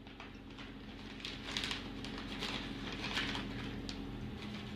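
Faint rustling and light scratchy taps of something being handled, a few scattered strokes, over a steady low hum.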